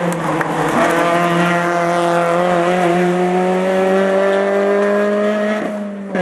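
Rally car engine held at high revs as the car drives through a bend and away, its pitch rising slowly as it accelerates. The sound drops out briefly near the end.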